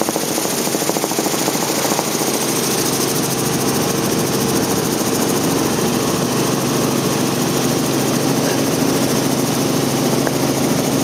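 Robinson R44 helicopter in flight, heard from inside the cabin: the six-cylinder Lycoming piston engine and rotors running as a steady, loud drone with a fine rapid pulsing and a constant hiss of air.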